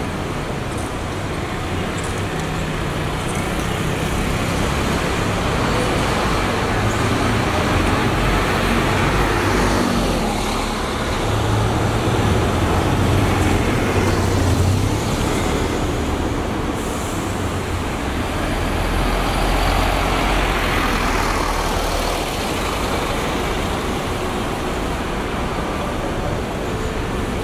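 City buses' engines running as they pull away and pass close one after another, over steady traffic noise; the low engine rumble swells several times as each bus goes by.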